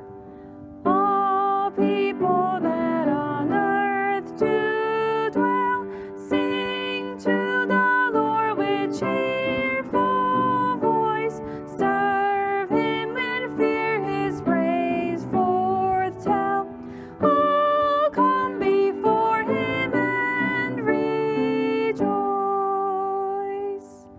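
Gentle melodic music, a run of notes changing about every half second, fading out near the end.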